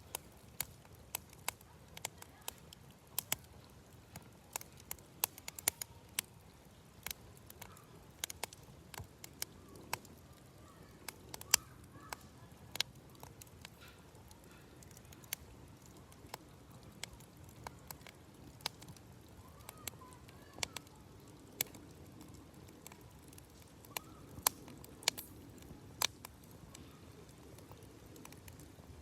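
Wood campfire crackling: irregular sharp pops and cracks, a few of them loud, over a low steady background.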